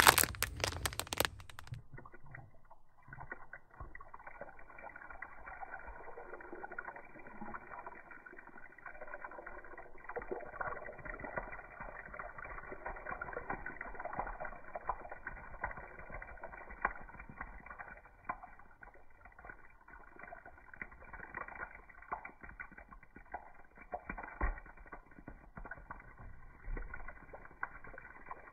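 A plastic produce bag crinkling for about the first two seconds, then a faint, muffled trickle and patter of water from a shower hose running over a bunch of grapes.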